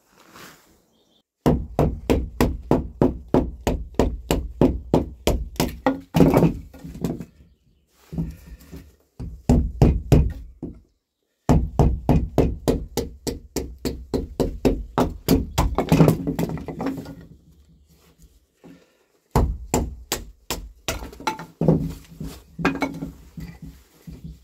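Batoning firewood: a wooden stick strikes the spine of a knife set in a piece of wood, over and over, to split kindling. The knocks come quickly, several a second, in runs of a few seconds with short pauses.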